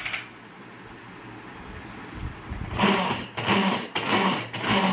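Ganesh manual pull-cord vegetable chopper being pulled repeatedly, each pull spinning the blades with a short whirr, about two a second, starting a little past halfway. The freshly replaced cord is working the mechanism again.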